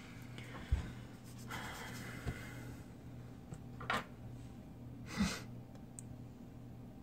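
Light handling noises of an iPad mini being picked up and turned in the hands: a few soft knocks and rubs, over a steady low hum.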